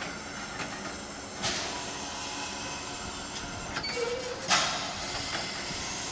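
Calumet & Hecla 'Torch Lake' steam locomotive standing with a steady hiss of steam, broken by two sudden louder blasts of steam about three seconds apart, the second the louder.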